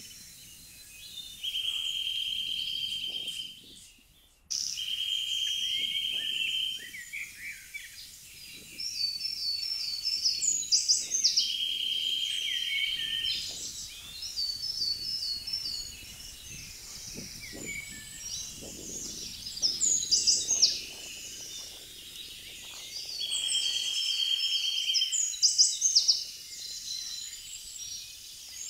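Woodland songbirds singing: one bird repeats a flat, dry trill about two seconds long, four times, while another sings quick, high chirping phrases in between.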